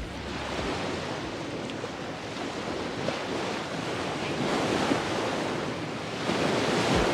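Sea waves washing onto the shore, with wind buffeting the microphone; the surf swells up about halfway through and again near the end.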